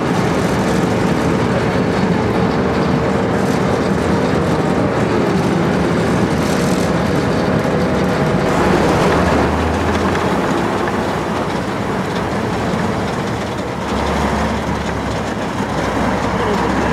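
T-55 tank's V-55 V12 diesel engine running under way while its steel tracks clatter and rattle, with a thin whine over the top that dips in pitch about five seconds in.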